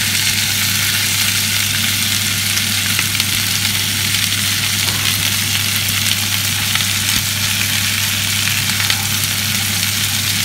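Diced carrot, onion and fresh pork fat sizzling steadily in an oiled frying pan, stirred now and then with a plastic spatula. A kitchen extractor hood's fan hums steadily underneath.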